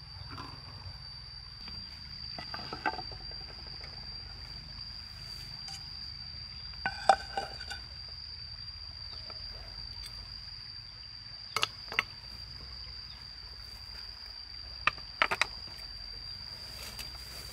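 A steady, high, unbroken insect drone, with a few sharp clicks and knocks over it, the loudest about seven seconds in.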